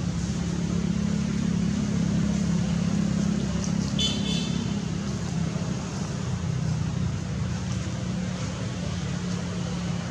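Steady low motor hum, like a vehicle engine running nearby, with a brief high-pitched squeak about four seconds in.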